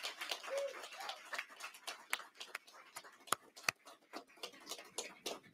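Scattered hand claps from a small audience, thinning out to a few single claps.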